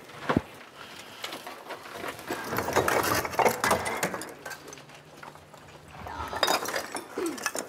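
Scattered scuffs, footsteps and knocks of shoes and hands on rock and loose stones as several people climb down a rock-cut shaft, with small clinks of stones being handled.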